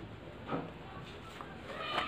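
Faint animal calls in the background: a short one about half a second in and a longer one near the end.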